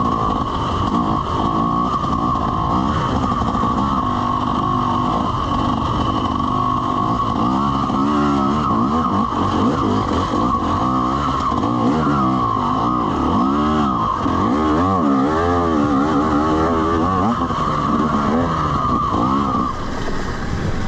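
Two-stroke dirt bike engine running under way on a trail ride, its revs rising and falling again and again as the rider works the throttle, easing off near the end.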